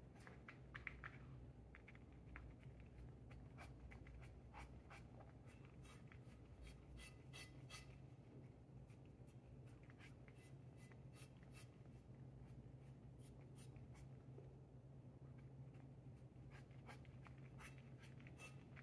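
A cat eating: faint, irregular small clicks and ticks of chewing and mouth sounds, over a faint steady low hum.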